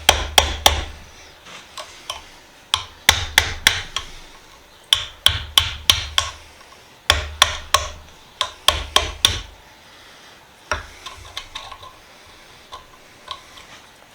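Hammer blows on a rusted hand tool clamped in a vise, struck in quick runs of several sharp metallic hits, to drive the seized tool apart. Near the end come a few lighter taps.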